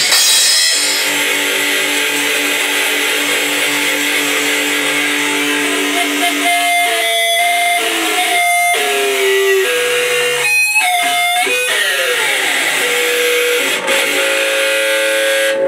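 Distorted electric guitar played metal-style: a chord held and ringing for several seconds, then long single notes with a few pitch slides, howling with amplifier feedback.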